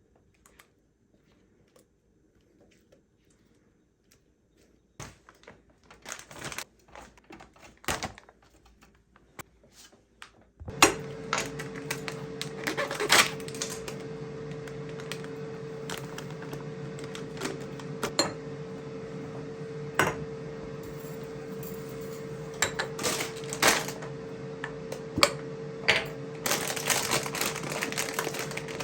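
Small clicks and light knocks of kitchen handling, then about ten seconds in an electric motor starts up and runs with a steady hum while clicks and clatter continue over it.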